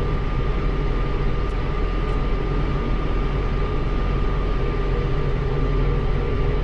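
Tractor engine running steadily at a constant speed, with a thin steady whine above the engine note.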